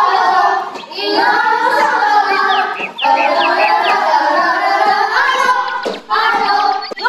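Children's voices singing a song over backing music, in phrases with short breaks.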